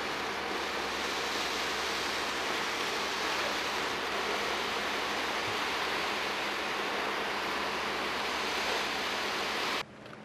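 Steady loud rushing noise of a concrete pump truck running while its boom pours concrete into the wall forms; it stops suddenly near the end, leaving a much quieter background.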